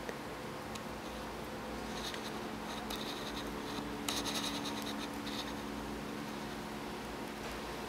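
Faint scratching in a few short clusters, the strongest about four seconds in, over a low steady hum.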